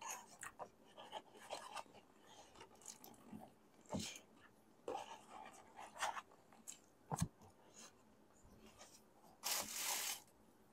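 Close-up eating sounds: chewing, with rustling of paper takeout boxes and scattered small clicks and knocks. A longer rustle comes about nine and a half seconds in as a box is handled.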